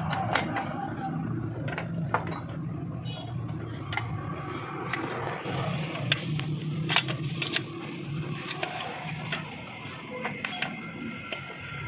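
Scattered metallic clicks and clinks as the brake shoes, return springs and adjuster of a Toyota Hilux Revo rear drum brake are worked into place by hand on the backing plate, over a steady low background hum.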